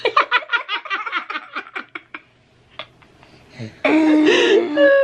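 A woman giggling in a quick run of short laughs that trail off over about two seconds, then a longer drawn-out vocal sound near the end.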